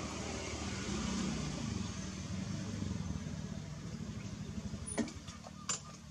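A motor vehicle engine idling: a steady low hum with a fast flutter, easing somewhat near the end. Two sharp clicks come about five seconds in.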